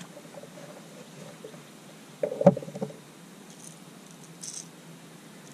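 A dull thump with a short clatter, about two and a half seconds in, on a bass boat as a caught largemouth bass is let back over the side; a few faint light ticks follow.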